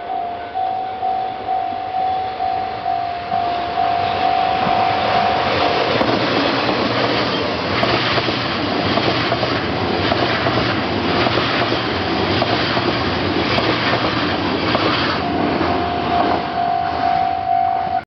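Level-crossing alarm bell ringing in a steady repeated ding, drowned out about five seconds in by a train passing close by, its wheels clattering over the rail joints. The crossing bell is heard again near the end as the train clears.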